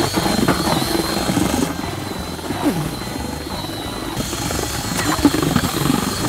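Engine of a towing vehicle running with a steady drone, together with a cordless drill spinning a paddle mixer through batter with a steady high whine.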